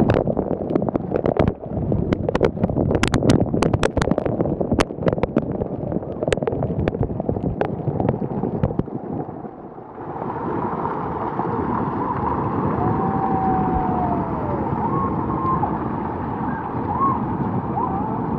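Spray-jet water splashing down onto wet swim shorts and a river tube, a rushing hiss full of sharp droplet patters and clicks. About ten seconds in it changes to a steadier rush of flowing water with a few faint squeaks.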